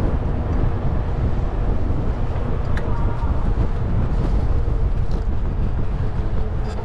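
Steady low wind rumble buffeting the microphone of a moving bicycle, mixed with road and tyre noise.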